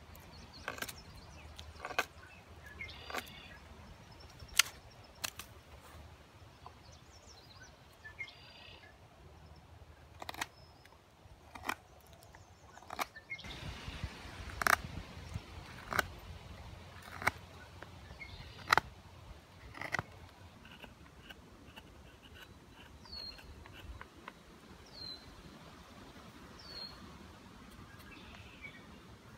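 A Helle Sigmund knife carving dead, dry trembling aspen: sharp slicing cuts and snaps at irregular intervals, roughly one a second, which stop about two-thirds of the way in.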